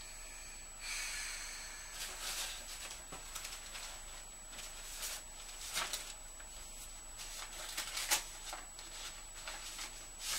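Paper rustling as greeting cards, letters and binder pages are picked up, leafed through and set down, in irregular short rustles with a louder crackle about 8 seconds in.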